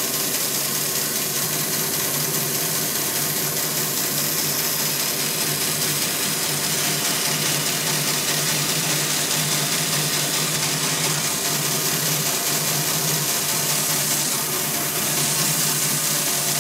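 Bandsaw running steadily, its blade cutting through a block of Dutch elm.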